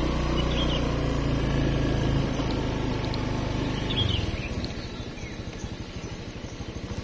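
A motor vehicle's engine running steadily. About four seconds in, it drops to a quieter, lower note.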